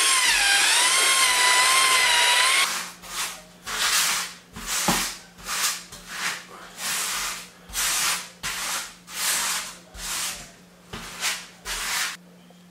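A drill with a paddle mixer churning epoxy grout in a bucket, its motor whining and wavering in pitch, stops about two and a half seconds in. Then a grout float scrapes back and forth across porcelain floor tile in even strokes, about one and a half a second.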